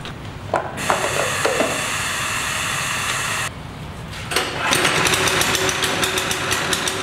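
6.5 hp Powerfist Honda-clone single-cylinder OHV engine running on a go-kart fitted with a torque converter. A steady whir holds for the first few seconds and dips briefly. From about four and a half seconds in, the engine gives a rapid, even chugging.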